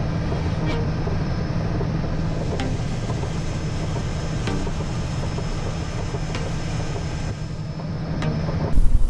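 Pilatus PC-6 engine and propeller running steadily on the ground, heard from inside the cockpit. Near the end the sound cuts abruptly to a louder, rougher one.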